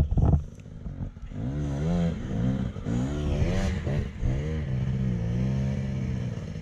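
Dirt bike engine revving under load on a rocky climb, its pitch rising and falling as the throttle is worked. A few knocks near the start and a brief rush of branches brushing past a little after the middle.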